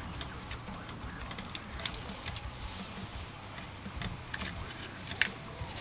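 Scattered small clicks and taps of a screwdriver and a metal plug-socket faceplate being handled while wiring the socket, the sharpest click about five seconds in, over a low steady hum.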